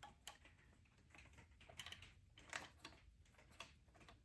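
Faint, irregular light clicks and taps of hands fitting a fuel return line onto a diesel injector, with near silence between them.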